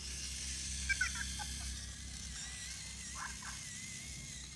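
Anki Cozmo toy robot making short electronic chirps that bend in pitch, a cluster about a second in and two more near three seconds, with a thin wavering whine running from about two seconds on.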